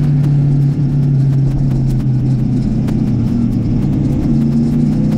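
Motorcycle engine running at a steady, moderate speed while riding. Its pitch dips slightly about a second in and rises a little again near the end.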